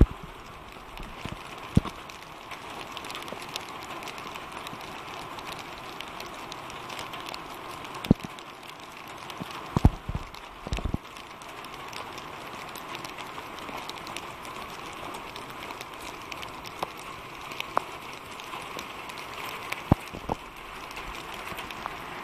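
Steady hiss of rain falling on a wet camp site, with occasional sharp knocks and taps scattered through it.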